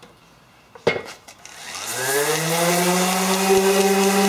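Electric orbital sander started up: a few clicks about a second in, then the motor winds up in pitch and settles into a steady whine.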